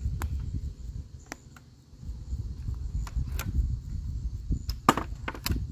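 A single sharp report about five seconds in, which fits a shot from an air rifle fitted with a muzzle brake. It sits over a steady low wind rumble on the microphone, with several fainter clicks before it.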